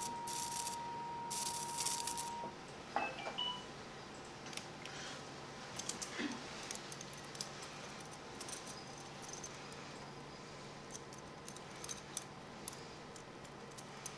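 Electrosurgical unit's steady activation tone, sounding for about two and a half seconds while the electrocautery pencil is in use, with two short bursts of high hiss. After it, steel surgical instruments clink and tap now and then.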